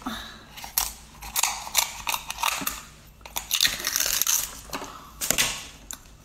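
Kitchen scissors cutting through the shell of a cooked king crab: a run of irregular cracks, snips and crunches as the shell splits.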